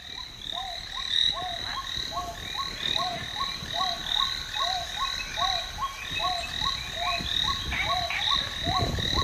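Frogs croaking in a steady rhythm, about two short calls a second, with a constant high tone running underneath.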